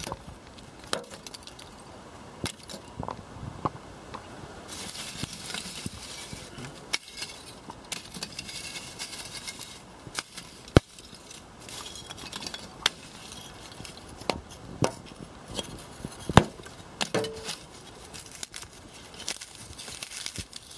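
Chunks of biochar being picked up and dropped back onto a pile of char in a wheelbarrow, clinking like glass: the glassy sound of a good, fully charred product. Scattered sharp clinks with rustling between them, the two loudest about eleven and sixteen seconds in.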